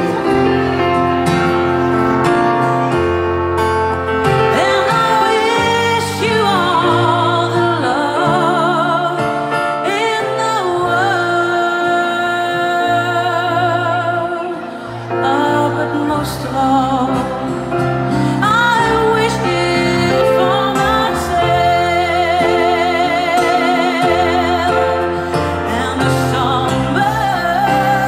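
Live ballad: a woman sings slowly into a microphone with a wavering vibrato over sustained keyboard chords and low bass notes. The keyboard plays alone for the first few seconds before her voice comes in.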